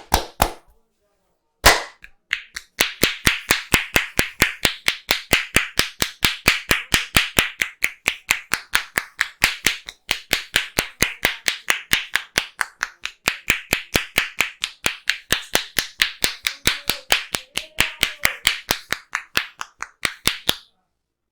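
A massaging barber's hands clapping and slapping in quick, even percussion, about four strikes a second, after two separate strikes at the start.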